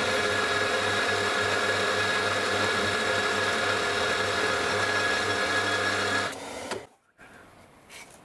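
Vertical milling machine running an end mill along the edge of an aluminium plate, a steady whine with a pulsing hum of the cut. It stops about six seconds in, followed by faint brushing scrapes as chips are swept off.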